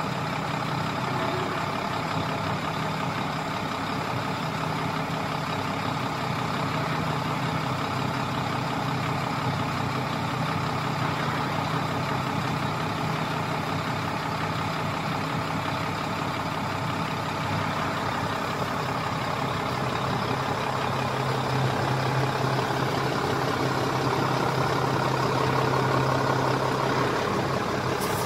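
Heavy truck diesel engine idling steadily, a deep even hum that grows a little louder in the last third.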